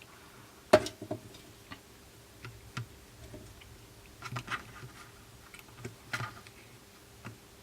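Scattered light taps and clicks from handling a partly dismantled iPhone and its new screen on a workbench, the loudest a sharp click about a second in.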